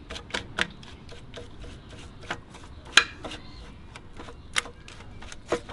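Small brush dabbing and scrubbing paint remover onto the ATV's grille in a cake pan: a run of irregular light clicks and taps, with one sharper tap about three seconds in.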